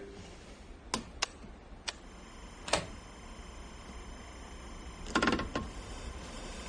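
A handful of short, sharp clicks of controls being worked on electronic lab equipment: a few single clicks in the first three seconds, then a quick cluster of them just after five seconds. A faint steady hum and high equipment whine run underneath.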